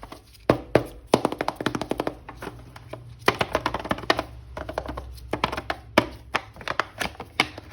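Hands handling and opening a plastic-packaged toy action figure: a dense run of irregular crinkles, clicks and taps.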